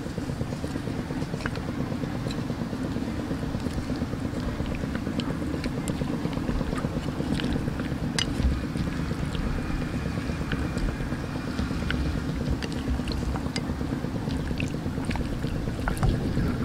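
Steady low rumbling background noise with scattered light clicks, and a slightly louder moment about eight seconds in.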